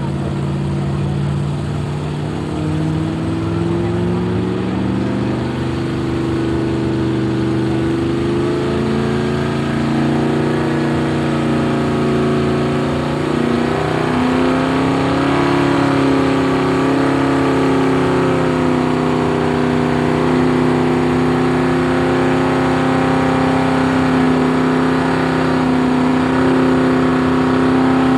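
Car engine revving: its pitch climbs and wavers over the first half, then is held at high, steady revs for the rest, over a steadier lower engine note.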